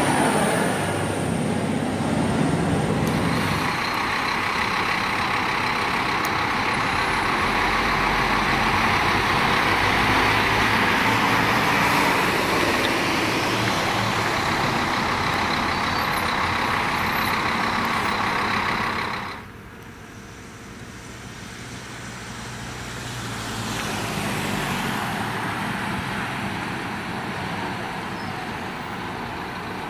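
Diesel buses running: a steady engine sound that cuts off suddenly partway through, then a second bus is heard getting louder and fading as it passes.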